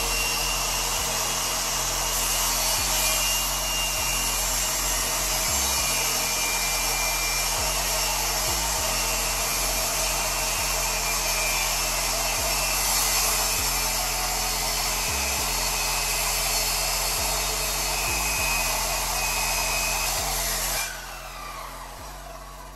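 Handheld electric circular saw running steadily as it cuts into a 2x3 board, then winding down with a falling whine about 21 seconds in as the motor is switched off.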